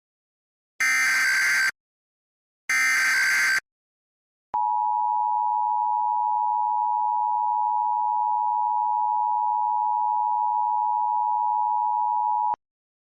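Emergency Alert System alert opening a Required Monthly Test: the last two of three distorted SAME header data bursts, each a harsh digital screech just under a second long, then the two-tone attention signal, 853 and 960 Hz sounded together, held steady for about eight seconds and cut off sharply.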